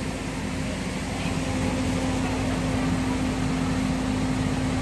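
Steady whir of power-amplifier cooling fans in a sound-system rack, with a constant low electrical hum underneath.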